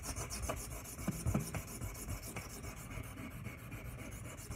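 D2 steel knife blade (Ontario RAT 2) being stroked rapidly back and forth across a sharpening stone: a continuous, rhythmic scraping. This is the bevel-setting stage on the first side, before a burr has formed along the whole edge.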